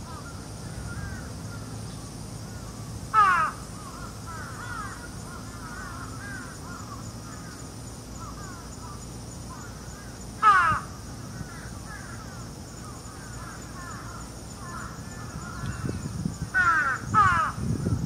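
A crow cawing four times: single harsh caws about 3 and 10 seconds in, then two in quick succession near the end. Under it run faint scattered chirps of small birds and a steady high insect buzz.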